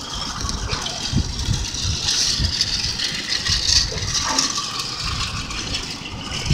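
Toy train running around its circular track: a steady mechanical running noise with a low rumble underneath.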